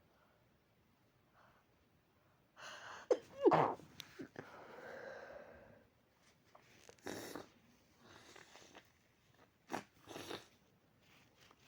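Sneezing: one loud sneeze about three seconds in, then two shorter, quieter sneezes later.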